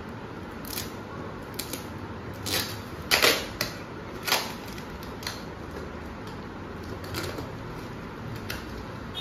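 Sharp clicks and scrapes of a small tool prying metal staples out of a cardboard box's flaps. There are louder scraping rips of cardboard about two and a half seconds in, at three seconds (the loudest) and past four seconds.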